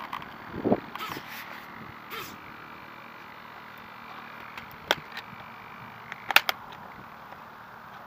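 Handling noise on the onboard camera and the RC plane's fuselage as a hand grips and shifts on it: rubbing and scraping in the first two seconds, then sharp clicks about five seconds in and a louder cluster of clicks about six seconds in, with the motor not running.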